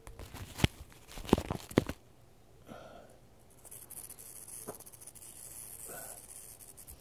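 Handling noise from a phone held against fingers: a quick run of sharp knocks and rubs on the microphone in the first two seconds, then softer rustling.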